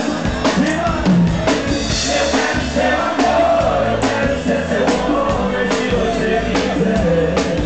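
A live sertanejo band playing an instrumental stretch between sung lines, with a steady drum beat under a pitched melody.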